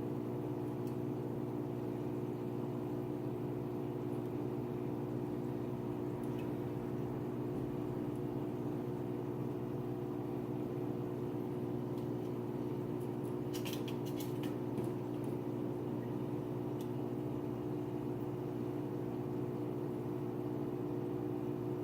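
Steady mechanical hum made of several fixed tones, unchanging throughout, with a brief cluster of sharp clicks about two-thirds of the way through.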